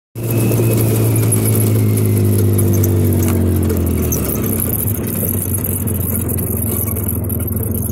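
ATV engine running, its pitch falling steadily over the first four seconds as the revs drop, then running at a steady lower speed.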